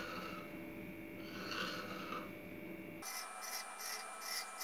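A knife blade drawn through thin rolled parotta dough and scraping the granite countertop beneath, scoring it into strips: two slow, soft strokes, then from about three seconds in a run of short, quick strokes.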